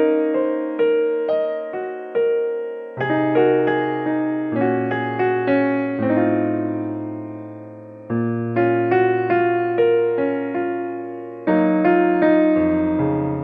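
Background piano music: chords struck and left to die away, with a low bass line coming in about three seconds in.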